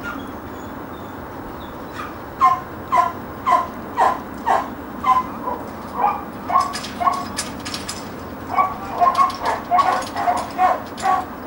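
A dog barking in a long, even run of about two barks a second, beginning about two seconds in.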